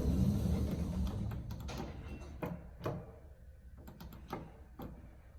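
Otis elevator doors sliding, with a low rumble that is loudest at the start and fades over about two seconds, then a few light clicks and knocks.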